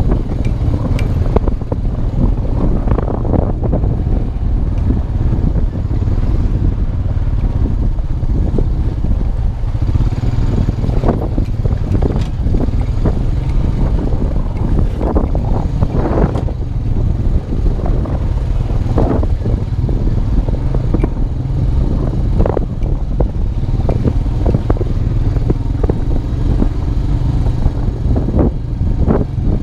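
2002 Honda Rancher 350 ATV's single-cylinder four-stroke engine running steadily while riding off-road, with scattered knocks and rattles from the rough trail.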